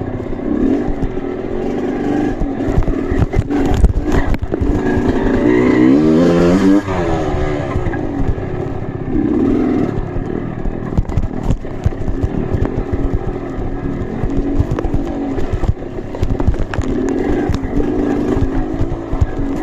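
Off-road trail motorcycle engine running and revving unevenly, with a quick rise and fall in pitch about six seconds in, amid clattering knocks.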